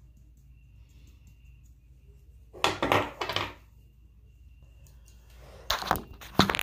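Small hard objects such as makeup items clattering and knocking on a hard surface in a burst of about a second. Near the end there are more knocks and rubbing as the phone camera is handled and picked up.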